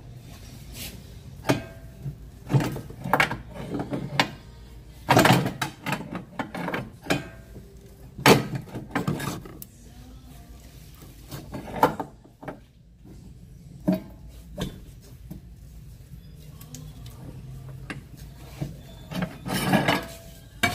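Long steel pry bar levering against the car's lower control arm to free the ball joint: a string of irregular metal knocks and scrapes with short pauses. The loudest knocks come about five and eight seconds in.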